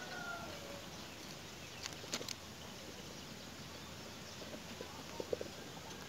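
Quiet outdoor ambience with a faint bird call in the first second, then a few sharp clicks about two seconds in and several soft ticks near the end.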